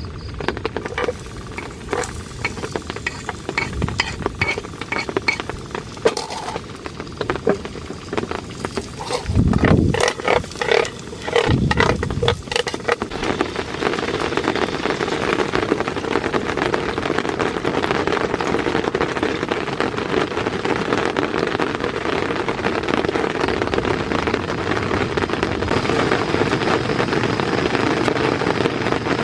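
Rain falling on a tent: scattered drops tapping on the fabric, with a few low thuds about ten to twelve seconds in, then a steady, dense patter of heavier rain.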